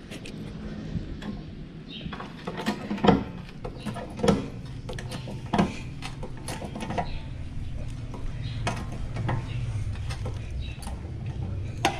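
Car jack being worked to raise a car off a flat tyre: irregular metallic clicks and knocks from the jack, over a low steady hum.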